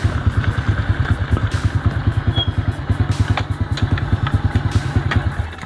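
Small Honda underbone motorcycle's single-cylinder engine running at low speed with a fast, even low beat, cutting off just before the end as it is switched off.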